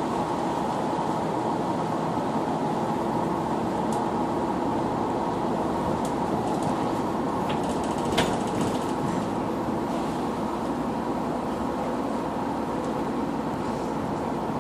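Connexxion city bus under way, its engine and running gear giving a steady drone with a whine near 1 kHz, and a few short rattles and clicks, the sharpest about eight seconds in.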